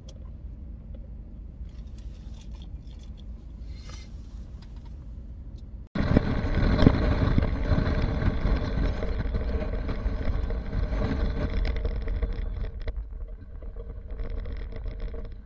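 A low, steady rumble in a truck cab for about six seconds. Then, abruptly much louder, wind and road noise on a camera outside a moving truck towing a van on a trailer, with the truck's engine running underneath; it eases a little near the end.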